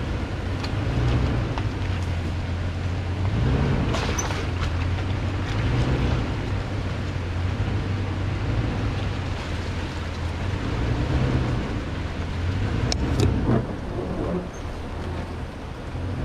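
2018 Toyota Tundra's V8 running at low revs as the truck crawls along a rocky dirt trail, with a couple of sharp knocks about four seconds in and again near thirteen seconds.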